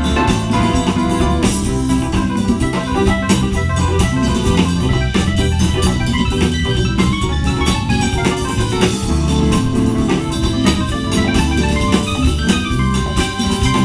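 Live soul band playing an instrumental passage, an electronic organ leading over a drum kit with steady beats.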